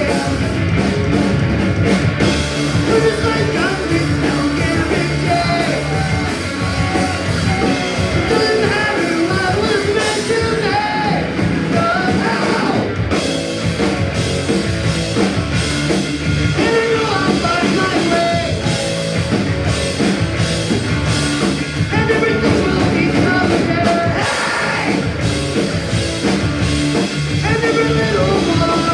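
Punk rock band playing live, with a singer's vocals over the full band.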